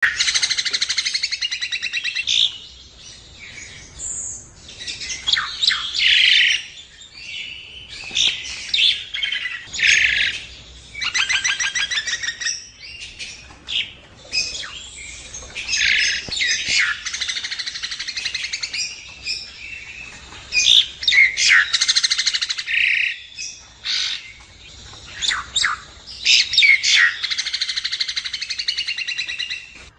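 Common myna singing: a varied run of chattering, squawky and whistled notes, broken by several rapid trains of repeated notes and short pauses.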